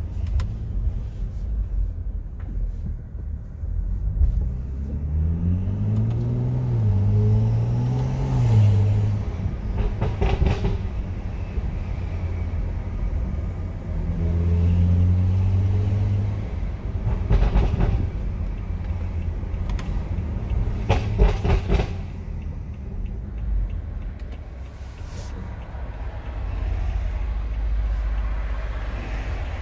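BMW 335i's N55 turbocharged straight-six with a full-bolt-on aftermarket exhaust, heard from inside the cabin under a constant low rumble. The revs rise and fall twice as the car accelerates. Several short bursts of sharp exhaust pops and crackles come in between.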